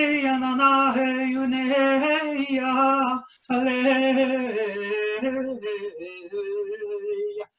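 A woman singing wordlessly in a solo intuitive chant, with no instruments. She holds long, warbling notes, pauses for a breath about three seconds in, then goes on to lower, quieter notes.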